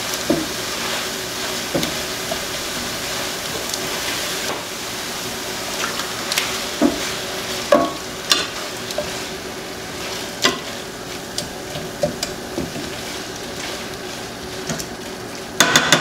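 Chicken pieces sizzling in a skillet while tongs stir them, clicking and scraping against the pan now and then, with a louder clatter right at the end.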